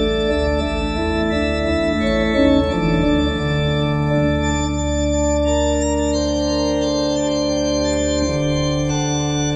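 Organ playing slow, sustained chords, with a deep bass note held from about three and a half seconds in until near the end.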